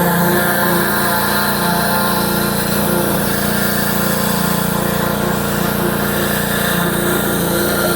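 Small petrol engine of a pressure washer running steadily under load, with the hiss of the high-pressure spray.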